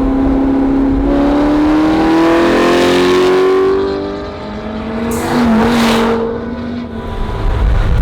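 A car engine accelerating hard: its note climbs steadily for about three seconds, drops away around four seconds in, then pulls up again briefly alongside a short rushing noise.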